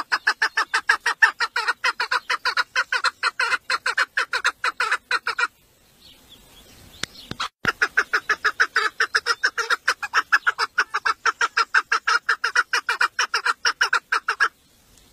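Female chukar partridge calling in a fast, even series of short notes, about five a second. The calling stops for about two seconds midway, a sharp click comes near the end of that gap, and then the series resumes and runs on until just before the end.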